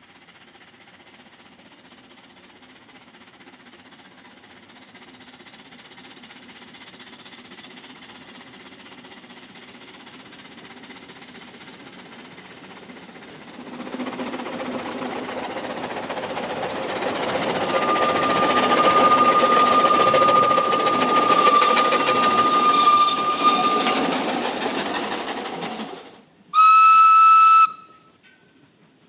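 A narrow-gauge Quarry Hunslet steam locomotive running with its train, faint and slowly growing at first, then loud as it works close past, with a long steady high-pitched tone over the running noise for several seconds. Near the end comes a single short, loud whistle blast lasting about a second and a half.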